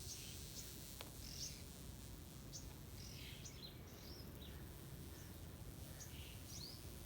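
Small birds chirping in the background: many short, high chirps scattered irregularly, over a faint low steady rumble.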